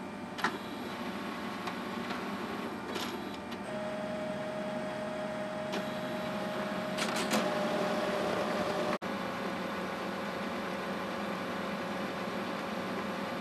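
HP Color LaserJet 3800 colour laser printer running through its power-up and print cycle: a steady mechanical whirr of its motors with several sharp clicks from the mechanism, and a steady whine that sets in about four seconds in.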